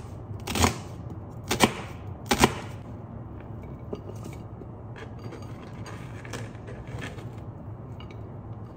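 Kitchen knife slicing an onion on a cutting board: three sharp knocks of the blade on the board about a second apart, then lighter, sparser taps.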